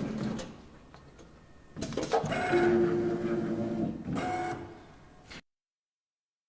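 Richpeace multi-function CNC sewing machine running as it stitches leather, foam and non-woven backing together. After a quiet second or so it runs for about three seconds with a steady motor whine, then gives a shorter burst before the sound cuts off abruptly.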